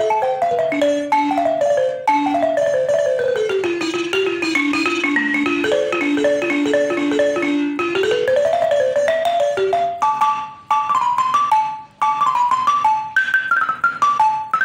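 Solo balafon, its wooden keys struck with two mallets in fast, cascading runs. The melody tumbles down to a stretch of quickly repeated low notes, climbs back up about eight seconds in, then plays higher phrases broken by two short pauses.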